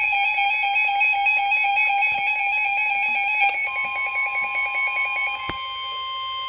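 Emergency Alert System attention signal: a loud, steady electronic alarm tone. About four seconds in, a second, slightly higher steady tone comes in, and the first tone stops a moment later.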